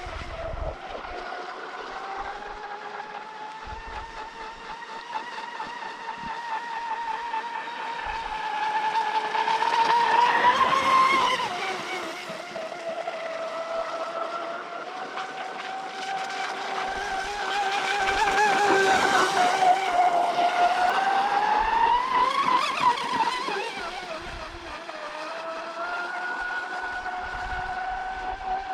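Traxxas M41 RC racing boat's brushless electric motor whining at speed, its pitch rising and falling with the throttle. It gets louder around ten seconds in and again from about eighteen to twenty-three seconds in.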